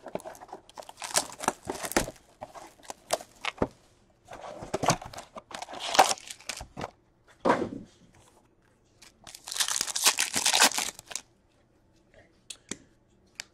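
Hockey card box packaging being torn open: wrappers ripped and crinkled in irregular bursts with short pauses, and only a few small clicks near the end.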